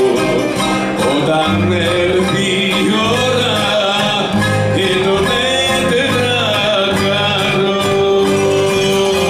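Live Greek laïko music: a bouzouki and other plucked strings with accordion over a steady bass rhythm, with a singer's voice; a long note is held through the second half.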